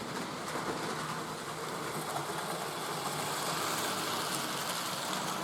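Model train running on the layout: a steady whirr of its electric motor and wheels on the track, a little louder in the middle as it passes nearer.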